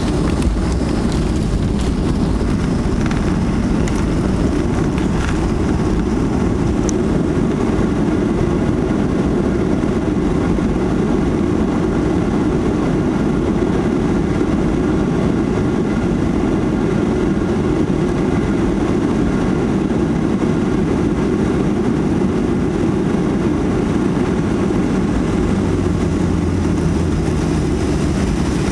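Cabin noise of a Boeing 737-800 on the ground after landing: a steady, deep rumble from its CFM56-7B turbofan engines and the airframe. A low steady hum joins the rumble near the end.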